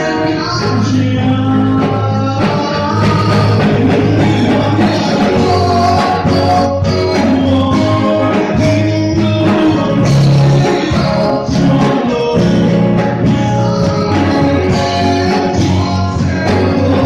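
Live band music: a man singing a worship song into a microphone, amplified through loudspeakers, with electric guitars accompanying him and a steady beat.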